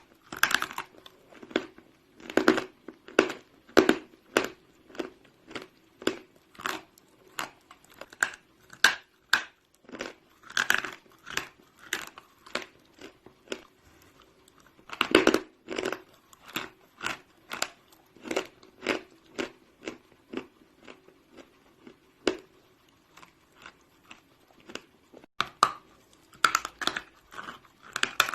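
Big blocks of chalk being bitten and chewed: a steady run of crisp crunches, about one or two a second, with a few louder bites along the way.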